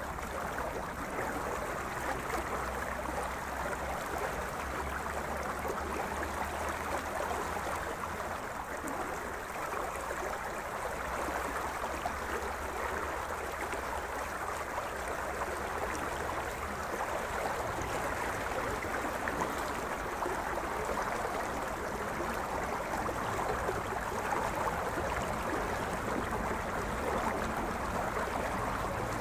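River water running steadily, an even rushing sound with no rhythm.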